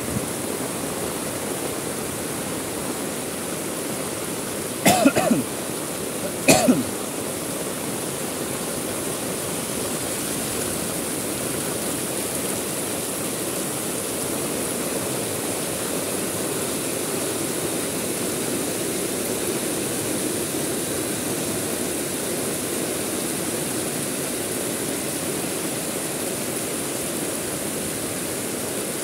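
Heavy rain falling steadily, an even hiss throughout. About five seconds in, two short, louder sounds come a second and a half apart and stand out above the rain.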